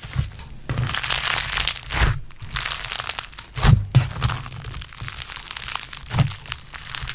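Crunchy slime being squeezed and pressed: a dense fine crackling, broken by a few sharper, louder pops, the loudest a little past halfway.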